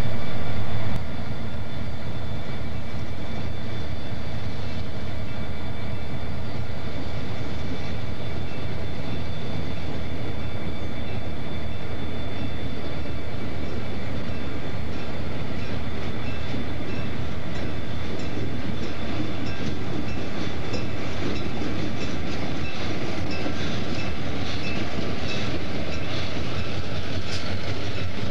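Burlington Northern EMD F-unit diesel locomotives running, a steady engine rumble. In the last several seconds the wheels click more and more often over rail joints as the units pass close by.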